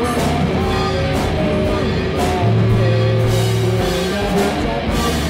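Music: held low notes, a melody line above them and a regular beat.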